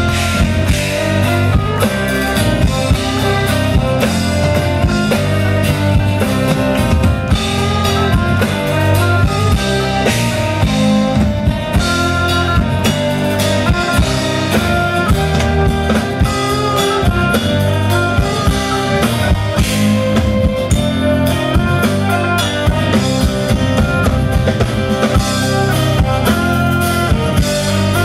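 Live Celtic rock band: Scottish bagpipes play a tune over a driving drum-kit beat with bass.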